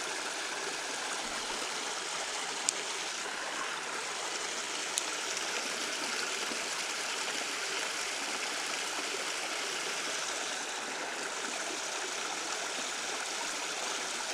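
Creek water running steadily over a riffle, with two brief sharp clicks about three and five seconds in.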